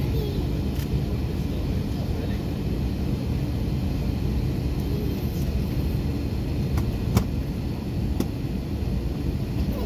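Steady low rumble of cabin noise inside an Airbus A321 with its jet engines at idle on the taxiway. A few sharp clicks come near the end, the loudest about seven seconds in.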